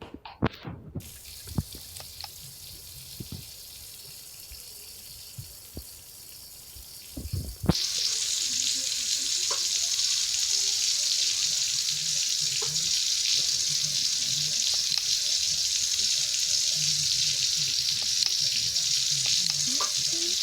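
A few knocks and clicks, then water starts running suddenly about eight seconds in and keeps running steadily.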